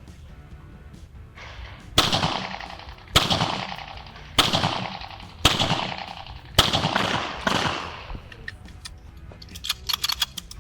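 A 9 mm pistol firing a string of single shots about a second apart, each with a short echoing tail. A few light clicks follow near the end.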